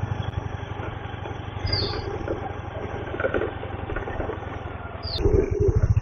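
Motorcycle engine running steadily while riding along a road, a low even hum.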